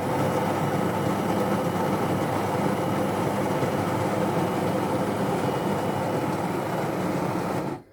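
Sencor SES 8500BK automatic espresso machine running loudly and steadily, starting abruptly and cutting off suddenly near the end.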